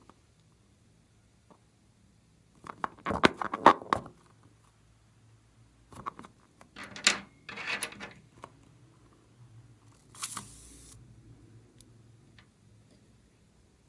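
Slime crackling and popping as it is squished, in three short bursts of clicks: about three seconds in, around seven seconds in, and about ten seconds in.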